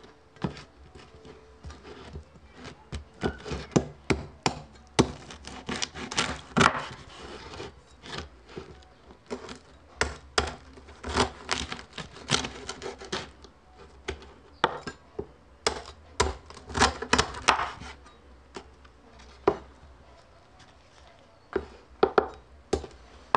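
A cleaver chopping through crispy deep-fried pork belly (lechon kawali) on a wooden cutting board. The skin crackles and crunches and the blade knocks on the board, in irregular clusters of sharp cuts with short pauses between them.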